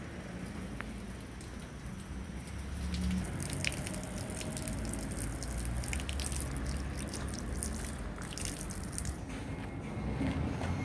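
Thin stream of water trickling and splashing from a dragon-head spout into the stone basin of a shrine purification fountain, heard from about three seconds in until about nine seconds, over a steady low rumble.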